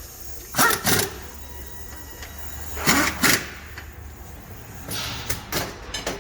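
Hand tools working on front suspension fasteners: short mechanical rasping strokes in pairs, about a second in and again about three seconds in, then a run of lighter clicks near the end, over a low steady hum.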